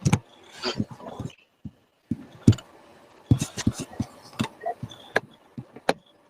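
Computer keyboard typing: irregular clicks and taps, several a second, with some heavier low thuds.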